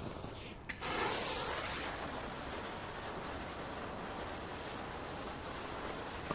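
Ground-spinner firework hissing steadily as it spins and sprays sparks, starting with a short click under a second in; the hiss is loudest at first.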